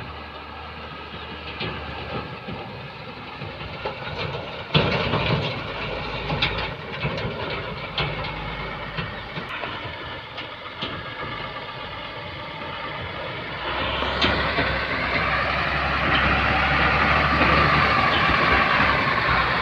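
Backhoe loader's diesel engine running, with a string of sharp metal clanks from about five seconds in. The engine grows louder and heavier near the end.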